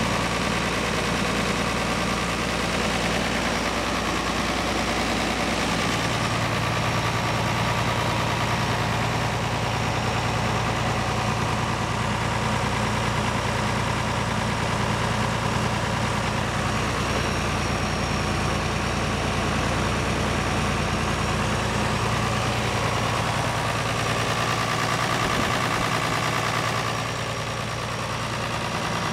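Farmall 1206 Turbo tractor's turbocharged six-cylinder diesel engine idling steadily.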